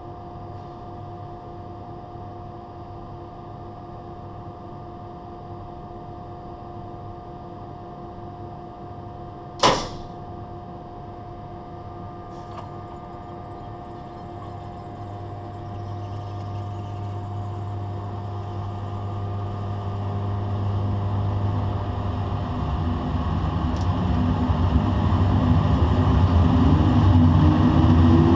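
Locomotive DC traction motor (one of six rated at 900 kW) at standstill with a steady electrical hum, then a single sharp, loud clack about ten seconds in as the main contactors close. The motor then takes full current in overload mode and spins up, a growing hum and rumble with a rising whine near the end as the axle gets under way.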